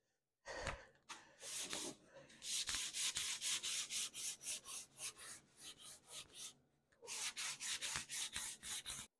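Hand sanding the freshly routed edge of a wooden board with a sanding block: quick back-and-forth rubbing strokes, about three a second, with a short pause near the end before the strokes pick up again.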